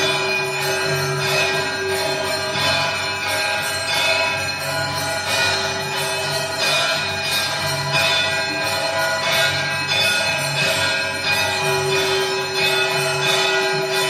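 Temple bells ringing continuously: rapid, overlapping strikes several times a second, with long sustained ringing tones layered beneath them.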